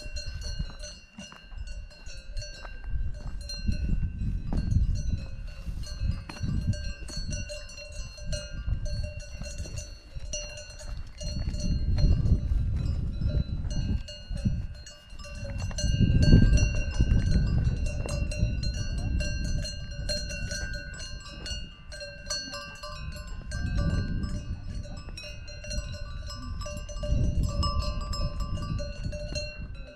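Cowbells on grazing cows clanking and ringing irregularly, over a low gusty rumble of wind on the microphone.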